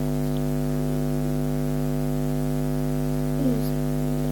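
Loud, steady electrical mains hum: a buzzy drone made of a low tone and a ladder of overtones, unchanging throughout, with one brief faint falling sound about three and a half seconds in.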